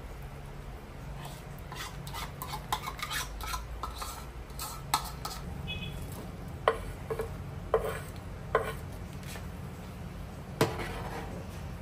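A metal utensil clinking and scraping in a large aluminium pan of tteokbokki simmering in broth. Several sharp knocks come in the second half as chopped green onions are scraped in from a wooden board and the pan is stirred. A steady low hum runs underneath.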